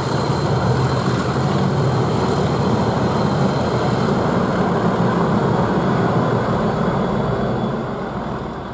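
Class 37 diesel locomotive running under power as the test train pulls away, a steady drone that fades near the end.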